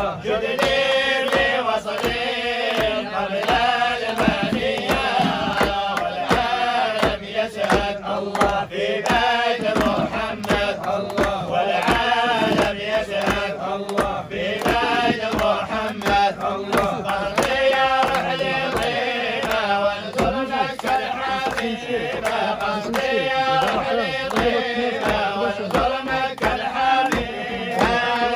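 A group of men's voices chanting an Islamic dhikr in unison, a devotional song praising God, with rhythmic hand clapping.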